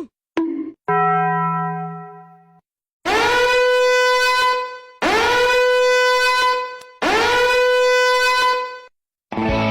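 A horn-like meme sound effect. A lower buzzy tone fades out first. Then come three long identical blasts at the same pitch, each about two seconds, scooping up in pitch as it starts.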